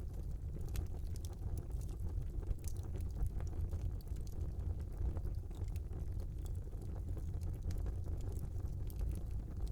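Wood fire burning in a small fireplace: a steady low rumble of the flames with scattered small crackles and pops.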